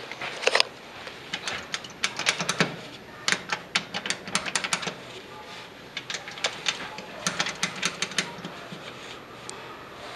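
Rapid, irregular sharp clicks and taps, coming in clusters of several a second.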